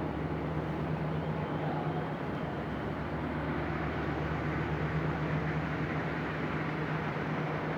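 A machine running steadily with a constant low hum, with no knocks or impacts.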